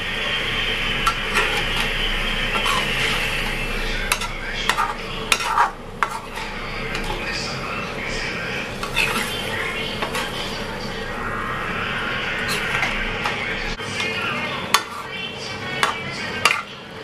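A metal utensil stirring chicken curry in a metal pan, scraping and clinking against the pan many times, over a steady sizzle of the liquid cooking in the pan.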